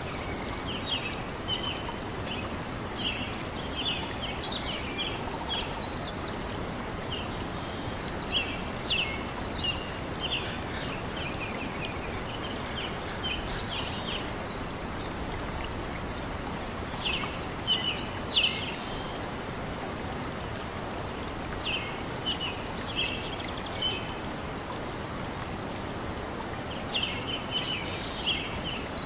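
Nature ambience: a steady rushing of flowing water, with small birds chirping in short bursts every few seconds.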